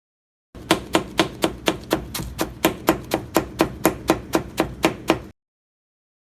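Knife finely shredding cabbage: a steady run of crisp chops, about four a second, starting about half a second in and then stopping abruptly.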